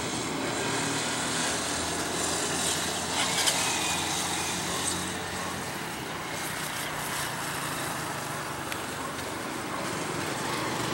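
Distant, steady roar of an Embraer E190's twin General Electric CF34-10E turbofans as the jet climbs away, with a couple of faint clicks about three seconds in.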